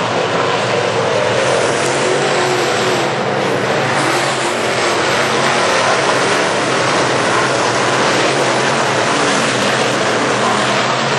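A field of GM crate late model dirt cars racing around a clay oval, their small-block V8 engines running together in a steady, loud drone.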